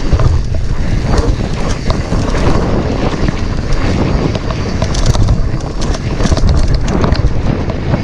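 Cube Nutrail mountain bike running fast down a dirt singletrack: a constant rumble of the tyres with scattered rattling knocks over bumps, under heavy wind noise on the microphone.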